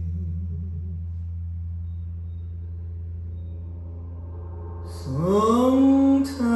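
Recorded music played through Thiel CS 2.2 loudspeakers: a sustained deep drone note slowly fading. About five seconds in, a singing voice slides upward into a held note.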